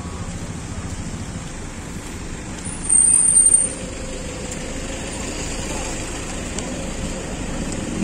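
Steady low rumble of vehicles, with a loud, brief high-pitched hiss or squeal about three seconds in that lasts under a second.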